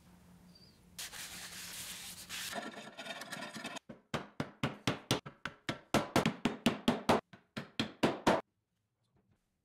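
Quick back-and-forth hand rubbing strokes on red oak, about four or five a second, as the wooden chair parts are hand-sanded and rubbed with finish. A steady hiss comes before the strokes start.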